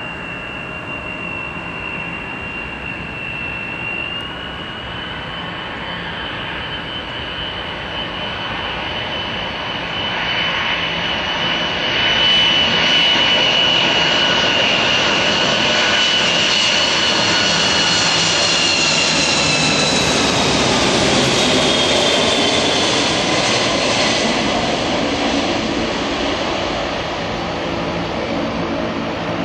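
Boeing 747-200 freighter's four jet engines passing: a steady high whine over a broad engine rumble that grows louder, then drops in pitch about twenty seconds in as the aircraft goes by.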